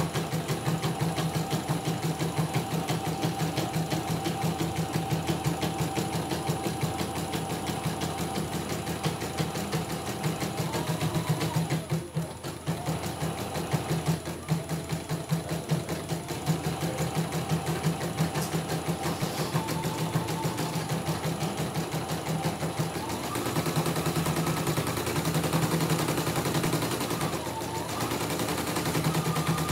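CNY E900 embroidery machine stitching a test design, a rapid steady patter of needle strokes over a motor whine that slides up and down in pitch as the hoop moves. The stitching stops briefly about twelve seconds in, then carries on. It is running smoothly after repair.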